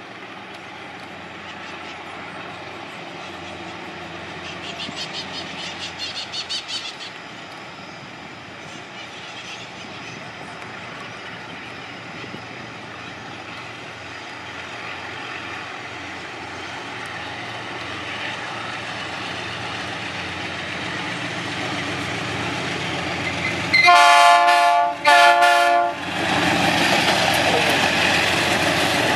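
Diesel freight train approaching with a low rumble that slowly grows, with a brief rapid high clatter around five to seven seconds in. Near the end the locomotive sounds two short horn blasts, each about a second long, then the diesel locomotives run loudly past close by.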